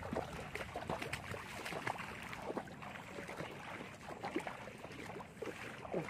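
Water sloshing and splashing in irregular small bursts, as from wading through shallow, grassy floodwater.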